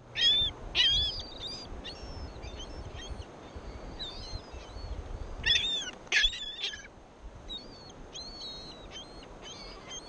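A flock of gulls calling: many short, high, arched calls that overlap. The loudest bursts come about half a second in and again around five to six seconds in, with fainter calls between.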